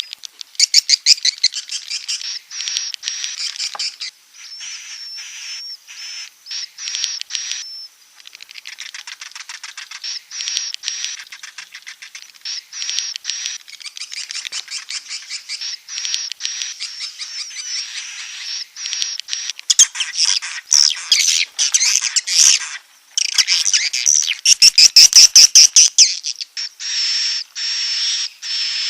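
Swiftlet lure call: rapid trains of high clicking, twittering chirps with a thin high whistle running through them, in repeated bursts that grow louder about two-thirds of the way through.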